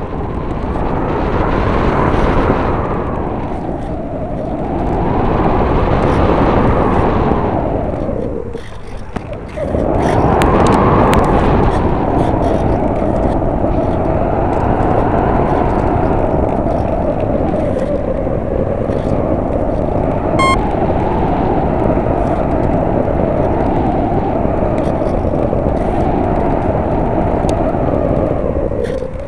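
Wind buffeting and rushing over the microphone of a small camera riding on an RC plane in flight, mixed with the whir of its brushless electric motor and propeller. The noise swells and fades every few seconds and drops away briefly about nine seconds in.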